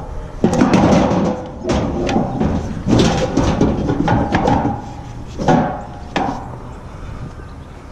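Background music with drums and percussion, fading toward the end.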